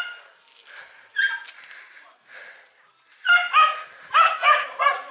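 A dog barking: a single bark at the start and another about a second in, then a quick run of five barks in the last two seconds.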